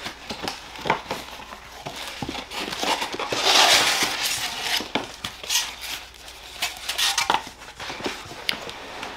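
Cardboard shipping box being unpacked by hand: cardboard and packing rustling and scraping, with small knocks and clinks of the parts inside. The loudest is a long scraping rustle about three and a half seconds in.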